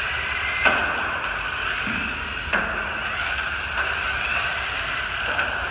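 Small electric motors of 1/16-scale Jada RC drift cars whining steadily as the cars drive around, with two sharp knocks, the first just under a second in and the second about two seconds later.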